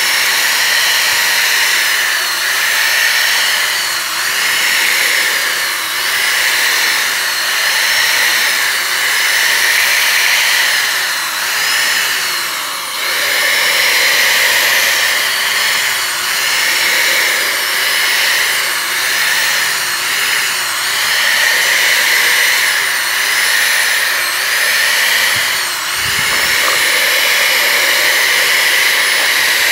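Electric drill running without a break, spinning a bent nail as a paddle to stir paint in a plastic bucket. Its motor pitch wavers up and down about once a second, with a brief dip about halfway through and again near the end.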